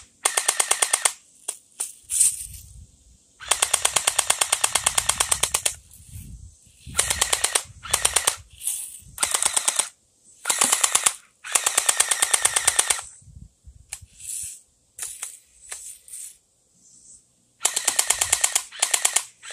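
Electric airsoft Uzi firing on full auto: bursts of rapid, evenly spaced clicking shots, about seven bursts of half a second to two seconds each, with a few single clicks in the gaps.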